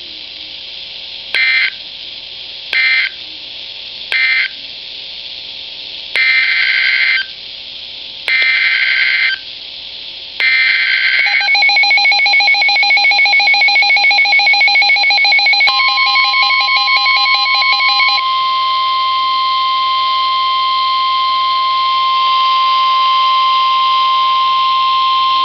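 NOAA Weather Radio Emergency Alert System signalling. Three short screeching digital data bursts end the marine warning, then three longer SAME header bursts open the severe thunderstorm warning. A warbling two-tone attention signal follows, and about 16 s in the steady 1050 Hz weather-radio warning alarm tone joins it, holding until it cuts off near the end.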